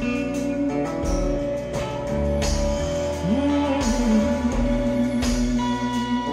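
Band music in an instrumental passage: a steady drum beat under held chords, with a lead note sliding up about three seconds in.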